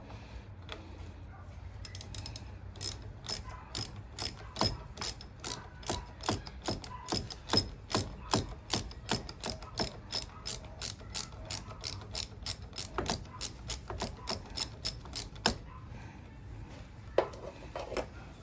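Hand ratchet clicking in a steady run of about two to three clicks a second as it backs out a screw, then stopping, followed by a couple of light knocks near the end.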